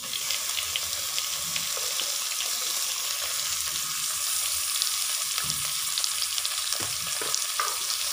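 Sliced onion frying in hot oil and ghee in an aluminium pressure cooker: a steady sizzle with fine crackling, and a few light knocks in the second half.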